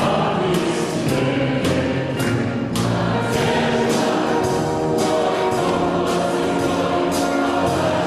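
Symphony orchestra and choir performing a song, with a crisp beat about twice a second.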